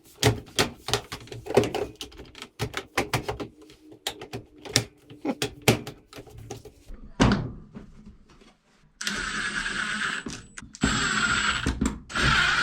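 Clicks, rattles and knocks of a washing machine's plastic drawer and front cover panel being fitted back on, with one heavier thunk about seven seconds in. From about nine seconds a cordless drill/driver whirrs in short runs of a second or two, driving the panel screws back in.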